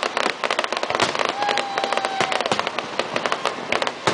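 Fireworks display: a dense, rapid crackling and popping of bursting fireworks, with a steady whistle lasting about a second near the middle.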